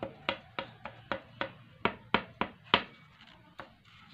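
A quick, evenly paced run of sharp clicks or taps, about three a second, cutting off suddenly near the end.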